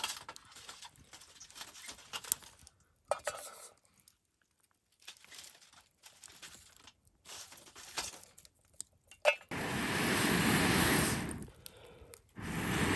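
Light clinks and scrapes of metal cookware being handled over a campfire, then about nine and a half seconds in two loud spells of rushing noise, the second running on to the end.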